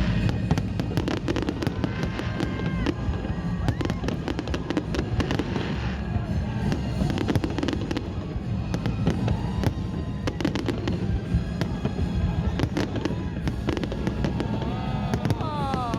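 Fireworks display: many sharp bangs and crackles in quick succession over a constant low rumble.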